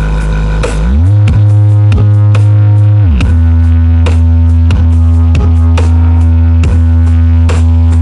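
Bass-heavy electronic music played very loud through a large sound system with banks of subwoofers. Deep held bass notes slide down and back up in pitch near the start and again about three seconds in, over a steady beat.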